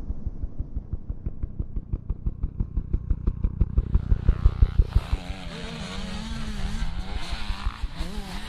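Motocross dirt bike engines. A fast, regular thumping builds for a few seconds and breaks off about five seconds in, followed by engines revving up and down.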